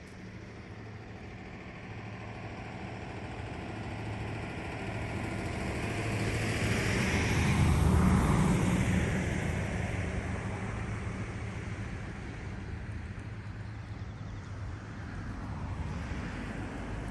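A motor vehicle passing by. It grows louder over several seconds, peaks about halfway with its pitch dropping, then fades away.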